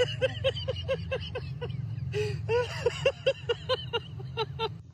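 A woman laughing in a fast run of short, high-pitched bursts, about four a second, over the steady low rumble of a car's running engine.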